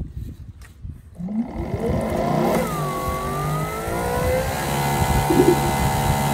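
Greenworks Pro 3000 PSI electric pressure washer's brushless motor and pump starting up and building pressure. About a second in, a whine rises in pitch and then settles into a steady hum made of several tones.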